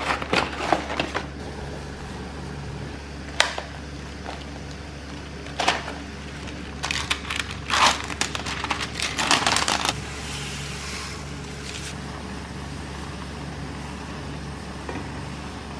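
Stiff plastic food packaging being handled and its film lid peeled off a tray: short crinkling and crackling bursts, thickest a little past halfway, over a steady low hum.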